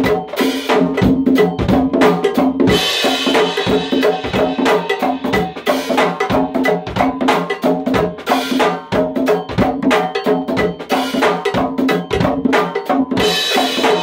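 Congas played by hand in a fast, dense go-go rhythm, a steady run of open tones and sharp slaps with no breaks. A brighter, hissier ring joins the strokes about three seconds in and again near the end.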